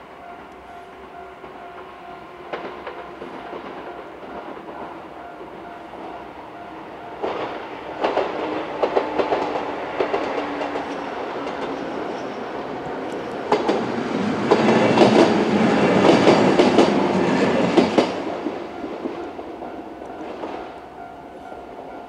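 A JR 103 series two-car electric train passing over a level crossing, its wheels clattering over the rail joints. The clatter comes in about a third of the way through, is loudest about two-thirds of the way through, and fades near the end. The crossing's warning bell rings steadily throughout.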